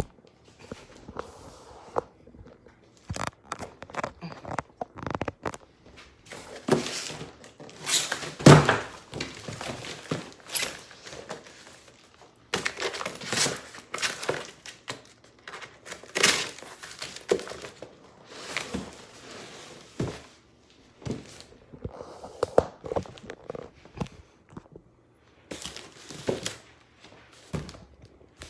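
A package being opened by hand: irregular crinkling and tearing of packaging, with scattered knocks and thunks, the loudest about eight seconds in.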